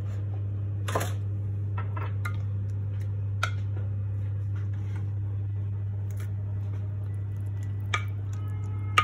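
A steady low hum, with a few short, light clinks of a utensil against a dish; the last, near the end, rings briefly.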